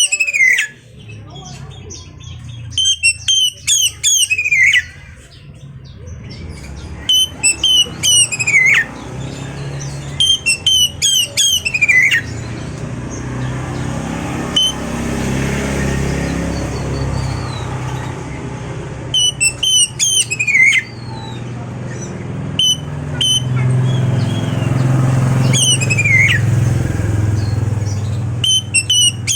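Oriental magpie-robin (kacer) singing in short, loud phrases every few seconds, each a quick run of sharp whistled notes sliding down in pitch. Underneath is a low steady rumble that swells around the middle and again near the end.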